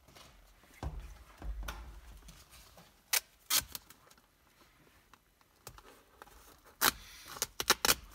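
Masking tape being handled for a car leather seat repair: a couple of low thumps about a second in, then short sharp crackles and rips as the tape is pulled and torn, clustered near the end.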